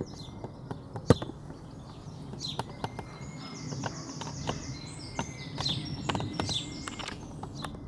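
Garden birds chirping and singing over a steady low background noise, with a few sharp clicks; the loudest click comes about a second in.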